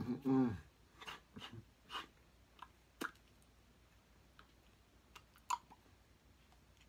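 A brief wordless vocal sound at the start, then scattered soft clicks and taps, the loudest about five and a half seconds in: mouth and hand noises of a person signing.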